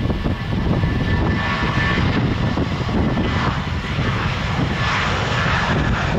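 Boeing 777-300ER's GE90 jet engines on approach: a steady rumble with a rushing hiss that swells twice in the second half.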